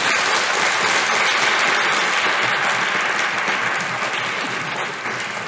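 Audience applauding steadily in a large hall, easing off slightly near the end.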